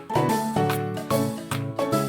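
Upbeat background music with a bouncy rhythm and bright pitched notes.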